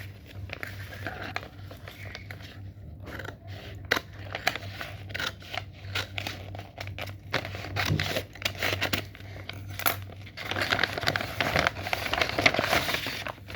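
Hands handling and opening toy packaging: scattered light clicks and taps, then from about two-thirds of the way through a run of crinkling and rustling as the wrapping is opened.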